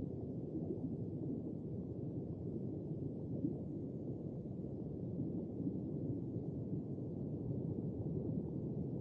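Steady, low, muffled underwater ambience: a rumbling wash of deep water noise with nothing high-pitched in it.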